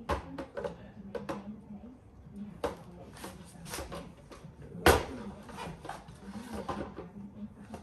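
Knocks and clatter of exhaust sections being handled and set on a scale, several short clicks with one loud knock about five seconds in.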